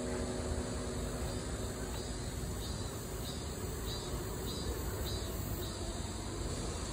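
Outdoor background noise, mostly low and steady, with a faint high chirp repeating about twice a second through the middle; a held chord of background music fades out at the start.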